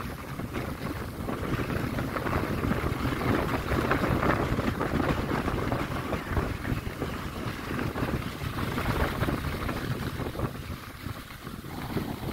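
Wind rushing over the microphone of a skier moving downhill, with skis hissing and scraping over packed, tracked snow. The noise rises and falls through the run, easing briefly near the end.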